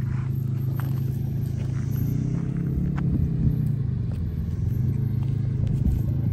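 Quadcopter camera drone flying low overhead: a steady low propeller hum whose pitch rises and falls briefly a couple of seconds in as it manoeuvres.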